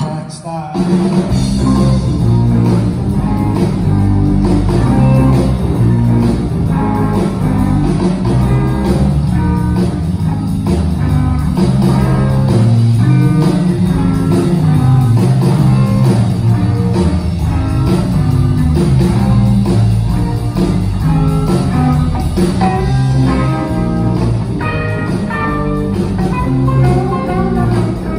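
Live rock band playing a rockabilly number through a PA: electric guitars, bass guitar and drum kit, with a strong bass line under the guitar notes. The band comes in at full level about a second in.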